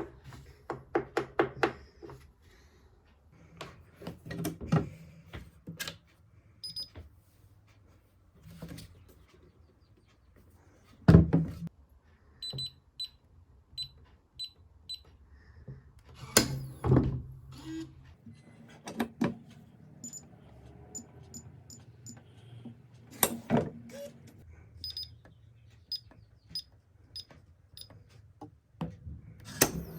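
Blacksmith biometric pistol safe being worked by hand: runs of short electronic beeps from its keypad and fingerprint reader, among clicks and thunks of its lid and latch. The loudest thunk comes about 11 seconds in.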